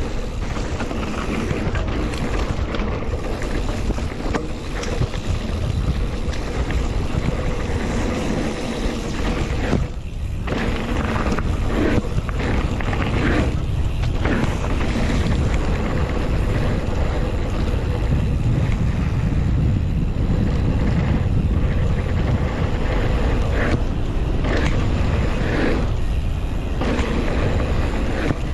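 Wind rushing over the action camera's microphone and mountain-bike tyres rumbling on a dirt trail during a fast descent, a steady loud rush that dips briefly twice, about ten and fourteen seconds in.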